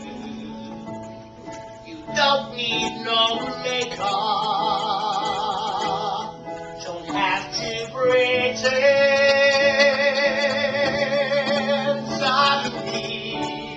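Live musical-theatre singing with instrumental accompaniment. A few short sung phrases lead into a long note held with vibrato. A second, longer vibrato note starts about eight seconds in and lasts some four seconds, over a steady low accompaniment.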